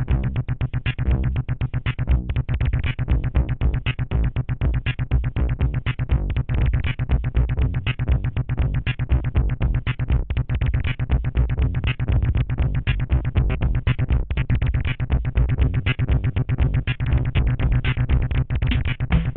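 Electronic music played live on a Korg Kaossilator handheld synthesizer: a fast, steady synth pulse over deep bass.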